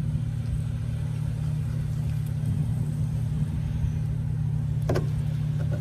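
Steady low mechanical hum, with one short knock near the end.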